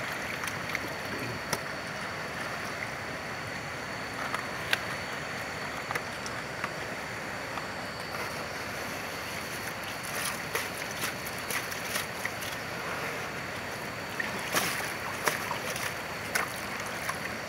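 River water running steadily, with scattered small splashes and clicks as wooden gold pans are swirled by hand in the shallows.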